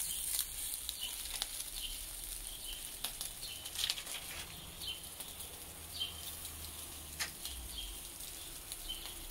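Ćevapi and chicken skewers sizzling on a hot electric grill: a steady fine hiss with scattered small pops and crackles.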